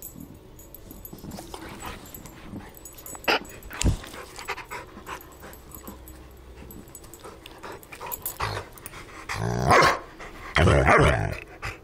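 A dog growling and barking in loud bursts during the last two seconds or so, after several seconds of quieter rustling and handling noise.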